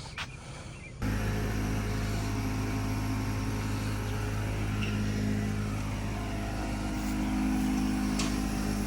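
Steady engine hum and road noise of a motor vehicle on the move, starting abruptly about a second in.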